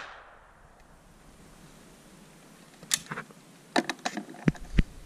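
The echo of a shotgun shot dying away, then after a quiet spell a series of sharp metallic clicks and knocks as the break-action shotgun is opened and the spent shells are handled, with two dull thumps near the end.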